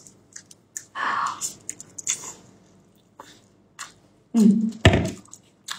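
Close-up eating of roasted lamb ribs: wet tearing of the meat by gloved hands, with chewing and lip-smacking clicks. A short hum about four and a half seconds in, then a single loud thump just before the end.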